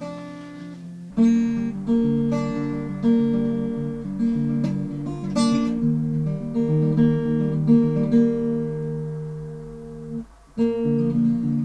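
Acoustic guitar music, chords strummed and notes plucked, coming in strongly about a second in, with a brief pause near the end.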